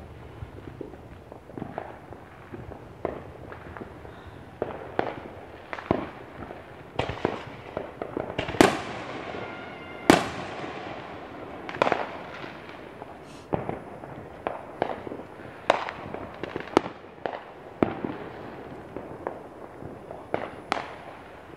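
Neighbourhood consumer fireworks and firecrackers going off in irregular sharp bangs and pops, about one a second, with the two loudest booms near the middle, each trailing off in an echo.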